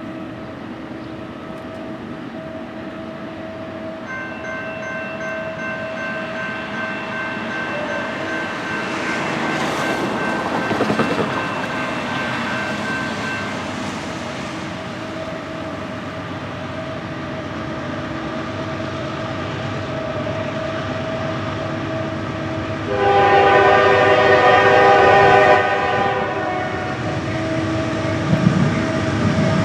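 Norfolk Southern GE AC44C6M locomotive leading an intermodal freight train on its approach, its sound building gradually with steady tones underneath. About 23 seconds in its air horn sounds loudly for roughly three seconds, then carries on more quietly.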